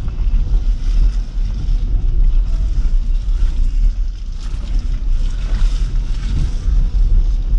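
Wind buffeting the microphone from a moving car's side window, a loud low rumbling rush that swells and drops in gusts, over the car's road noise.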